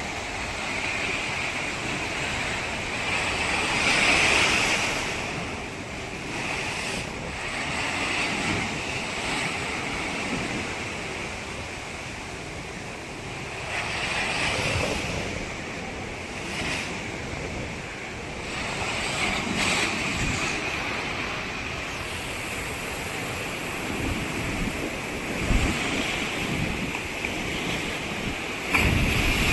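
Ocean surf breaking on a beach, a steady wash that swells louder every several seconds as waves come in, with wind buffeting the microphone.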